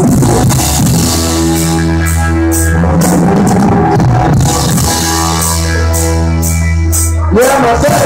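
Live band playing: cigar box guitar with electric bass and drum kit, long held notes over steady cymbal hits. Singing comes in with a rising note near the end.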